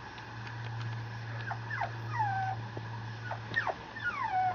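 Mame shiba puppy whimpering: short high whines that slide down in pitch, coming in two little clusters, one about a second and a half in and another near the end. A steady low hum runs underneath.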